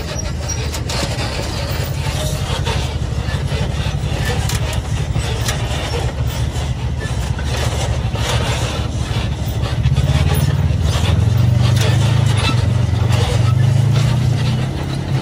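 Side-by-side UTV engine running under way on a trail, with frequent short knocks and rattles over it. The engine gets louder about ten seconds in.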